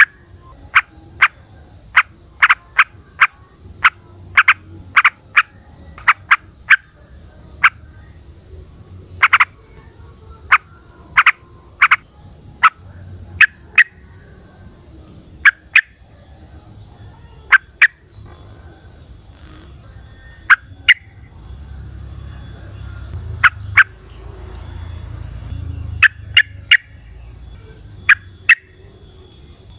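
Yellow-vented bulbul (trucukan) calling: short, sharp, loud notes, sometimes in quick runs of four or five, more often single or paired, at irregular spacing. Insects trill in pulses high above it with a steady high whine, and a low rumble rises about two-thirds of the way through.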